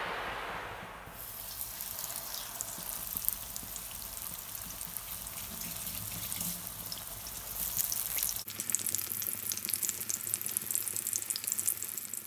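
Breaded pork chop frying in shallow hot oil in a steel wok. The oil starts to sizzle about a second in as the chop goes in, then keeps up a steady crackling sizzle with many small pops.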